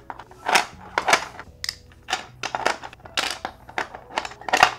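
Hard 3D-printed plastic puzzle pieces clicking and knocking against each other and their tray as they are shifted and fitted into place, in a string of irregular sharp clicks.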